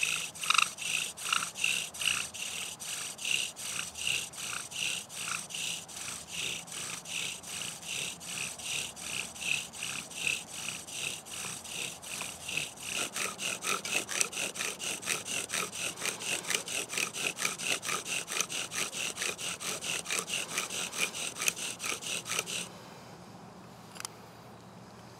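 Pine bow drill being worked: the bow sawn back and forth spins the spindle in the hearth board, giving a squeaky rubbing squeal on every stroke. The strokes come about two a second, speed up about halfway through, and stop short about 22 seconds in.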